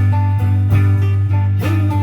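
Live band music without singing: strummed guitar chords over a steady bass line.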